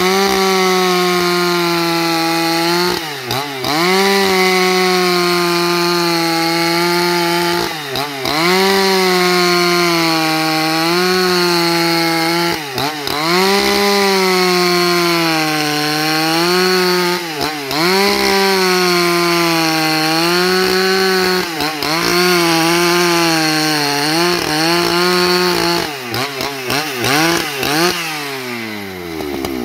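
Husqvarna 281 XP two-stroke chainsaw at full throttle, ripping a log lengthwise into planks. The engine note sags under the load of the cut every few seconds and picks back up, and near the end it drops as the throttle is let off, then revs up again.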